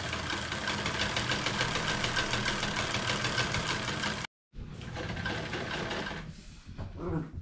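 Vintage sewing machine stitching fabric at a steady speed, the needle mechanism making a fast, even clatter. It cuts out for a moment about four seconds in, runs again, then slows and stops about six seconds in, followed by a few handling sounds.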